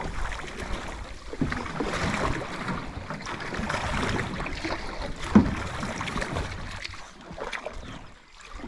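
Canoe paddles dipping and splashing beside an aluminum canoe, with water swishing along the hull, in irregular strokes. One sharp thump comes about five and a half seconds in, and the sound quietens somewhat near the end.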